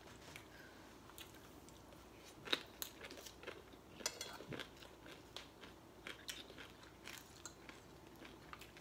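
Faint chewing and crunching of food, with scattered light irregular clicks of a metal spoon against a plate.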